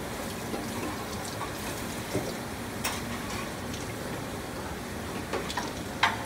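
Steady rushing kitchen background, like running water, with a few light clicks and knocks of a knife and utensils handled at a cutting board. The sharpest knock comes near the end.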